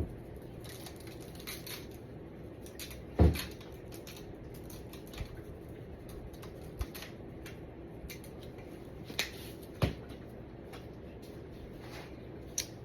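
Applewood dry rub being shaken from its seasoning container onto a raw brisket: scattered light ticks and pattering, with a few knocks of the container. The loudest knock is about three seconds in.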